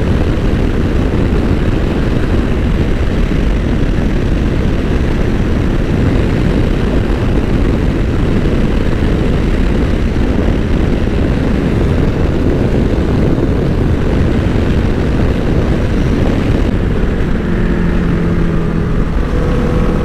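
Steady wind rush on the microphone of a Honda NC750X motorcycle riding at road speed, mixed with its parallel-twin engine running. Near the end the wind eases and a steady engine note comes through.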